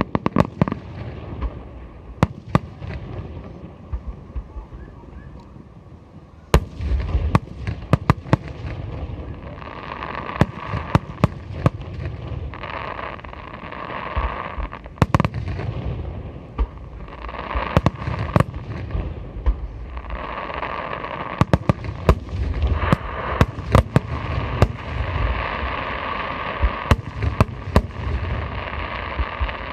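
Aerial fireworks going off: dozens of sharp bangs, irregular and often in quick clusters, over a dense rushing noise that swells and fades several times.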